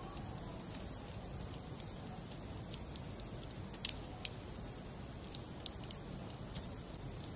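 Wood fire in a fireplace crackling: irregular sharp pops and snaps over a steady low rumble of the flames, with a couple of louder pops about halfway through.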